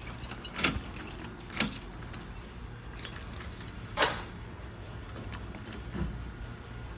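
A set of keys jangling, with several sharp metallic clicks as they are handled at a Kwikset smart lock; the loudest click comes about four seconds in.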